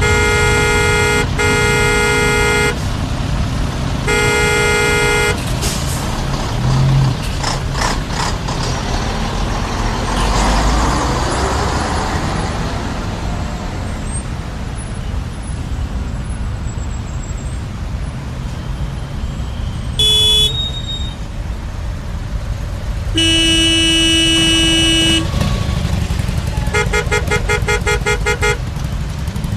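Traffic jam: a steady low rumble of idling and crawling vehicles, with car horns honking over it. There are two long blasts at the start and a third a few seconds later. Later come a short toot, a long lower-pitched horn, and then a quick string of rapid beeps.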